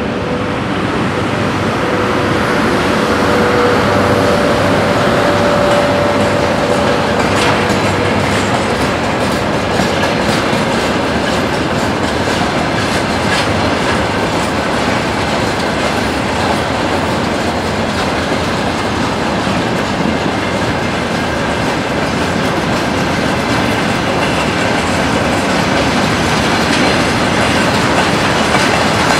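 Freight train of grain hopper wagons hauled by a VL80k electric locomotive rolling steadily past, its wheels clattering over the rail joints. A thin steady whine is heard in the first several seconds.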